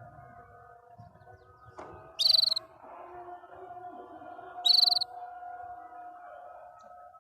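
Domestic canary giving two short, loud, high-pitched trilled bursts about two seconds apart, over softer steady held tones.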